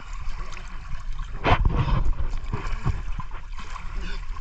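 Water splashing and trickling in an irrigation canal, with one loud splash about a second and a half in.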